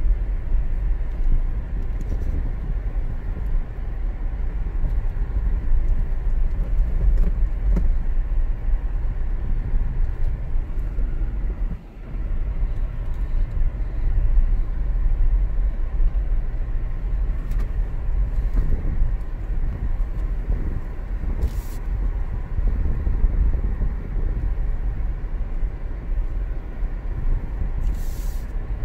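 Steady low rumble of a 2019 Toyota 4Runner crawling along a rutted dirt trail, heard from inside the cab: engine and tyres on dirt, dipping briefly about halfway through.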